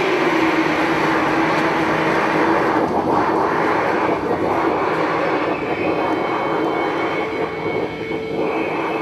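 The dance's sound score: a loud, steady roaring noise with a low tone held under it. The roar thins a little about three seconds in, and near the end the held tone moves slightly higher.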